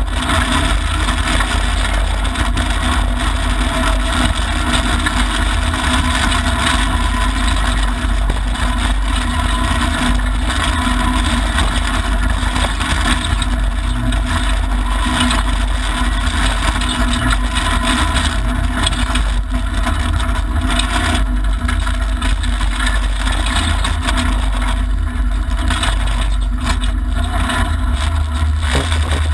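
Loud, steady in-cabin noise of a Mitsubishi Lancer Evolution IX rally car driven at speed on a gravel stage: its turbocharged four-cylinder engine running under load, mixed with a heavy low rumble of tyres and chassis on the gravel road.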